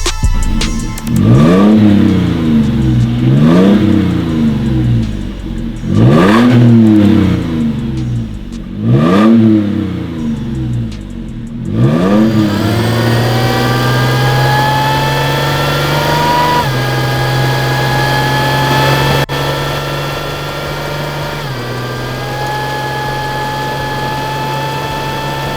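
Supercharged 4.0-litre V6 of a 5th-gen Toyota 4Runner, fitted with a Magnuson supercharger, revved up and down about five times. It then pulls with a steady, slowly rising note that drops in pitch twice, like upshifts under acceleration.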